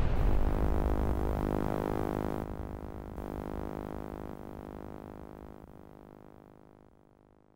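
A sustained synthesizer tone sounding the end of a countdown, its pitch shifting in steps every second or so while it fades away steadily to nothing; the low rumble of a boom dies out in the first moment.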